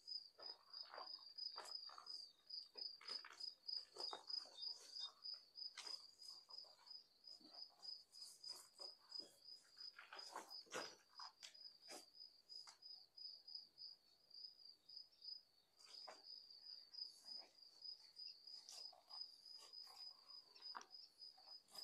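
Faint, steady cricket trill, a fast, even high-pitched pulsing, with soft scattered crunches and scuffs of footsteps on a rubble-strewn floor.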